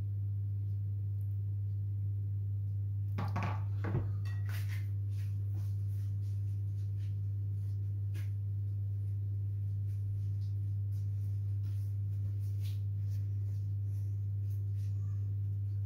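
A steady low hum runs unchanged throughout. A brief flurry of rustles and clicks comes about three to four seconds in, with faint light ticks afterwards.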